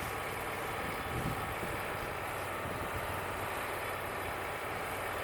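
Wood-Mizer LT35 portable sawmill's engine running steadily.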